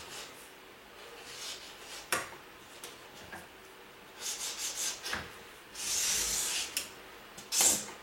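Moving boxes being handled and slid: rubbing and scraping, with a sharp knock about two seconds in and a longer scrape around six seconds.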